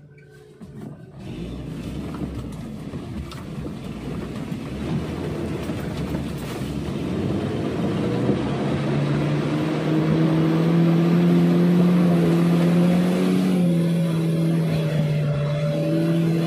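Car engine revving hard under load as the vehicle pushes through slippery mud, heard from inside the cabin. The revs build over the first few seconds, hold high and steady from about halfway, and dip slightly near the end.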